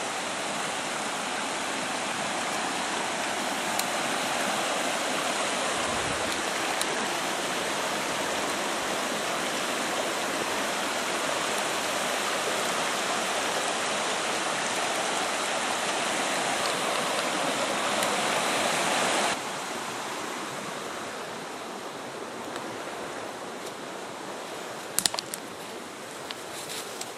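Shallow rocky stream rushing over stones, a steady loud rush of water that drops suddenly to a softer level about two-thirds of the way through. A few sharp clicks come near the end.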